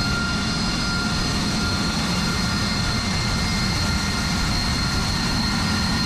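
Jet engine running at a steady level: an even rush of noise with a high, steady whine on top.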